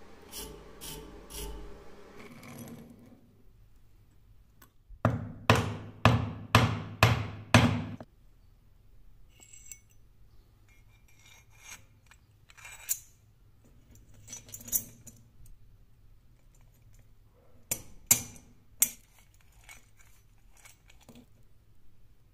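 Steel parts of a homemade crank wire-bender being handled and fitted together: a quick run of about six sharp metallic knocks a few seconds in, then scattered light clinks and taps.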